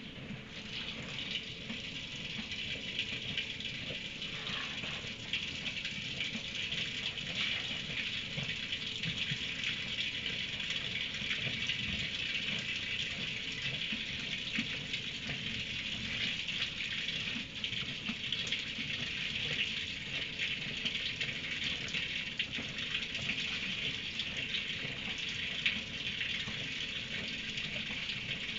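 A steady hiss, with crackly rustling and crunching underneath as a horse feeds on hay in a straw-bedded stall.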